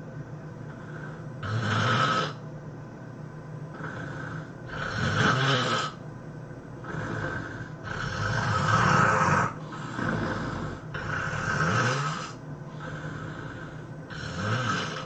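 A person snoring heavily in deep sleep: about seven loud, rough snores, one every one to three seconds, at an uneven rhythm.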